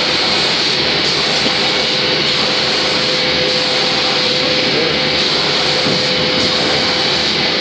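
Automatic spraying machine's air spray gun hissing steadily as it sprays PU paint over a wooden door, with a steady machine hum beneath; the highest part of the hiss drops out briefly about once a second.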